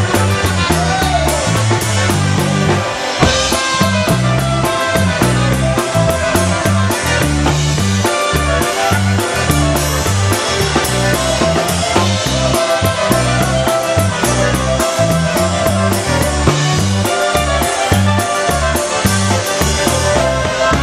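Live polka band playing an instrumental passage of a polka, a button concertina carrying the melody over a steady bass and drum beat.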